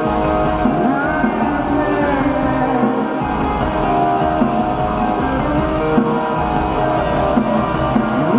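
Live rock music with electric guitar, playing on without a break.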